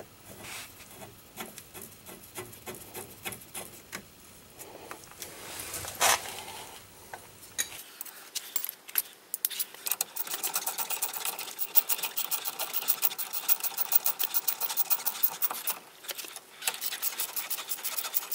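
Hand tools and metal brake parts scraping and clicking while brake pads and a caliper are fitted. In the second half comes a fast, even run of metallic clicks.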